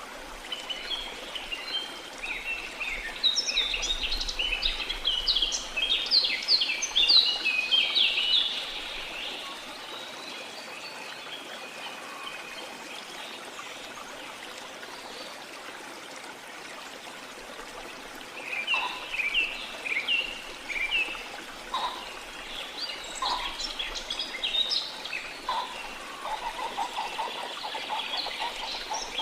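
Steady rush of a flowing river or stream, with birds chirping rapidly in two busy spells, one near the start and one from about two-thirds of the way through.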